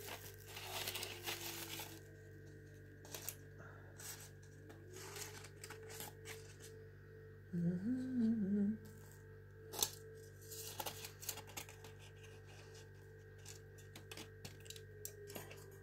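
Foil wrapping on chocolate figures rustling and crinkling as they are handled and set down, with scattered light clicks and taps. A short hummed 'mm' of a voice comes about eight seconds in, over a faint steady hum.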